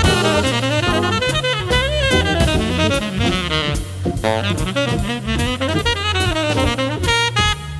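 Background jazz music: a saxophone melody over a drum kit and a walking low line.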